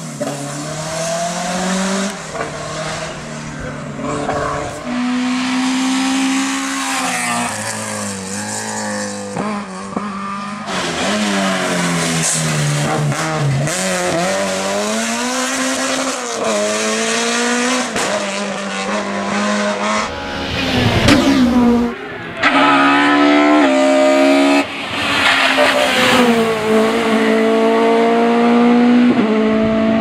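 Race car engines on a hillclimb, revved hard in repeated climbs in pitch that fall back sharply at each gearchange or lift for a corner, as several cars in turn accelerate up the course.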